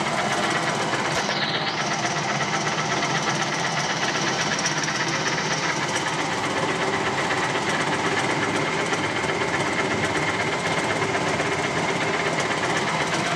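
A 1977 Leblond Regal Servo-Shift engine lathe running at a steady spindle speed, its geared headstock giving an even mechanical whir. A faint high whine comes in about a second in and fades out around six seconds.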